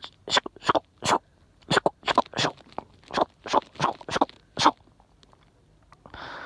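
Bonfire crackling: a run of sharp, irregular pops and snaps from burning wood, about a dozen and a half in five seconds, falling quiet near the end.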